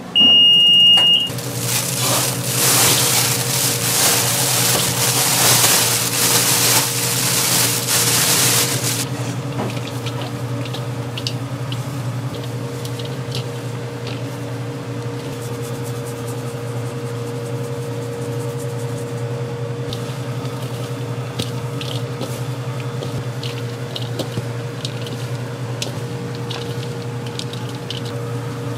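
A short electronic beep, then a loud hiss for about eight seconds that stops abruptly, over a steady low machine hum with scattered light clicks and taps.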